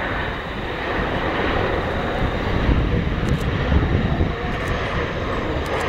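Jet engines of a Boeing 737 airliner on final approach with landing gear down, a steady rushing rumble that grows louder as the plane closes in.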